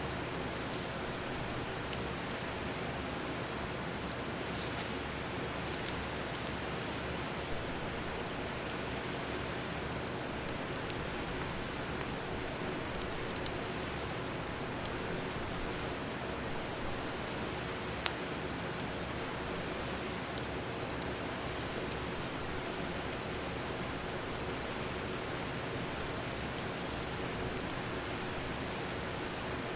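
Campfire burning: a steady hiss with sharp crackles and pops scattered irregularly throughout.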